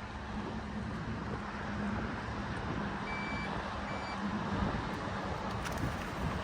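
Steady wind and open-water noise on a fishing boat under a low, even electric hum, with two short high-pitched electronic beeps from the boat's electronics about three and four seconds in.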